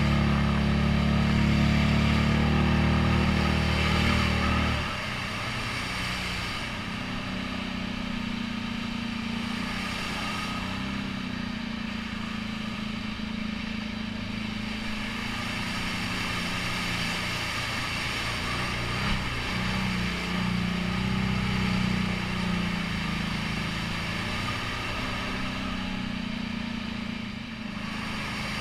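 ATV engine running as the quad is ridden through mud and water holes: loud under throttle for the first five seconds, then dropping to a steadier, lower drone that rises and falls a little with the throttle.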